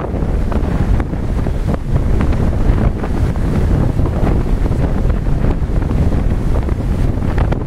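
Strong wind buffeting the microphone: a loud, steady low rumble with short gusty crackles through it.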